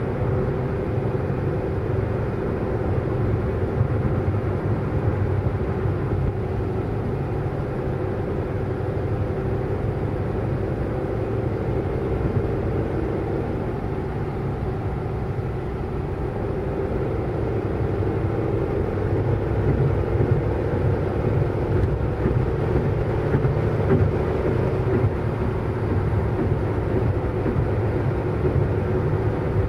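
Motor scooter engine running steadily while riding in slow traffic, mixed with road and surrounding traffic noise. It gets a little louder in the second half.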